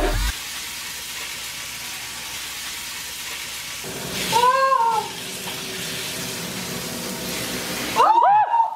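Pork belly slices sizzling in a hot frying pan, a steady hiss. A woman's voice gives a short rising-and-falling cry about halfway through and another, louder one near the end as the pan flares up.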